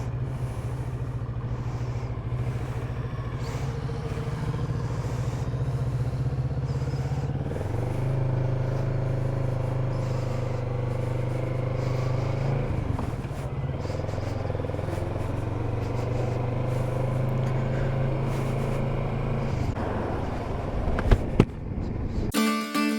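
Kawasaki Z650RS parallel-twin engine running under way, its note stepping to a new pitch about eight and thirteen seconds in and dropping away near the end.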